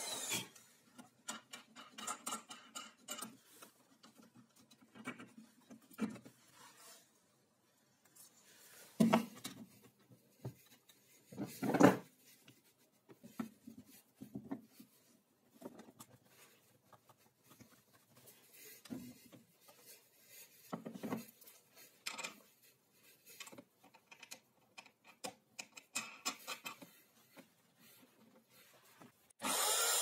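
Wooden knocks, clicks and rubbing as a plywood jig and workpiece are handled and shifted on a wooden drill-press stand between hole-saw cuts. Two louder knocks come about 9 and 12 seconds in.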